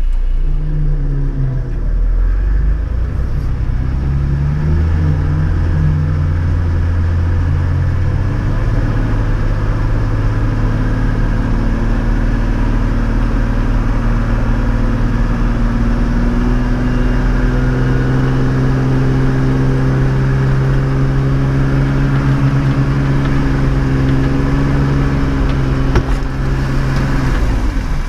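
Four-wheel drive's engine running steadily under load, its revs stepping up and down and held between changes, during a winch recovery from deep mud.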